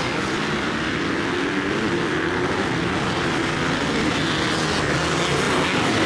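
Motocross motorcycle engines running steadily, a continuous mechanical drone that grows a little louder toward the end.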